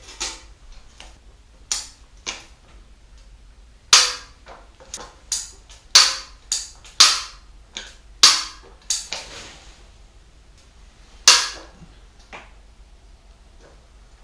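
About a dozen sharp clicks and knocks at irregular intervals, each with a short ringing tail.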